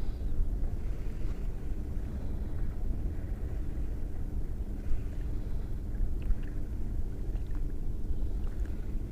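Steady low wind rumble buffeting the microphone, with a few faint sharp pops or clicks about halfway through and later.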